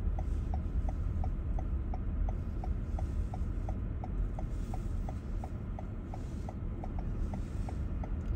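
A car's indicator flasher ticking evenly, about three ticks a second, over the low steady hum of the car's engine and cabin.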